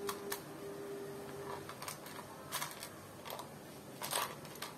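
Light plastic clicks and taps, about half a dozen spread out, the loudest cluster about four seconds in, as tiny plastic mini building bricks are picked through in a plastic tub and tray. A faint steady tone sounds underneath for the first second and a half.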